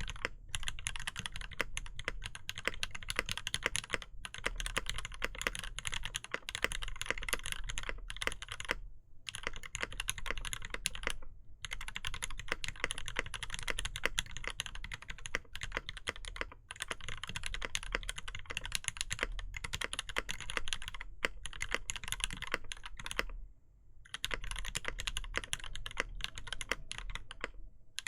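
Continuous fast typing on a custom mechanical keyboard: lubed and filmed Gateron Ink linear switches in an aluminium plate with no foam, under GMK keycaps, with the odd longer stroke on the stabilised keys. The typing breaks off for a moment three times.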